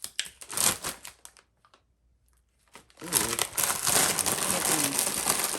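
Plastic packaging crinkling and rustling in short bursts, then continuously and louder from about three seconds in.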